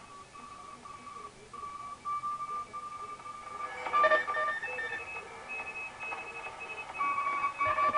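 Morse code (CW) signals coming from a vintage Ameco ham receiver: several stations keying at once, each beeping at its own pitch. The signals get louder and more crowded about four seconds in as the tuning is turned.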